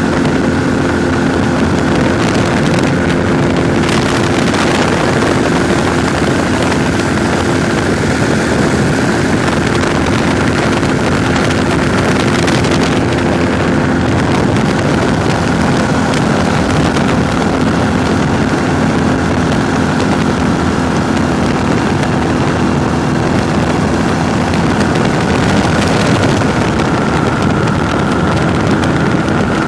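Weight-shift trike ultralight in flight: its engine and propeller drone steadily with a constant pitch, under heavy wind rush on the microphone in the open cockpit.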